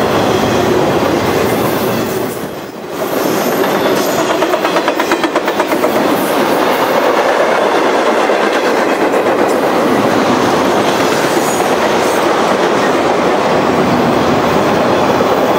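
Intermodal freight train's trailer-carrying flatcars rolling past: a steady rumble of steel wheels on rail with a rhythmic clickety-clack as the wheels cross rail joints. The sound dips briefly about three seconds in.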